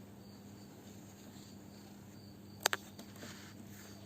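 Quiet room tone: a steady faint electrical hum and hiss, with two quick sharp clicks close together about two-thirds of the way through.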